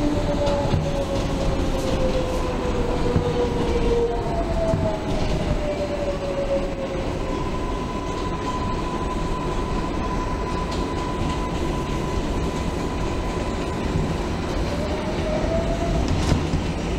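New York City subway 4 train running on elevated track, heard from inside the car: a steady rumble of wheels on rail, with a whine gliding down in pitch twice in the first seconds, holding one steady higher tone through the middle, and rising again near the end.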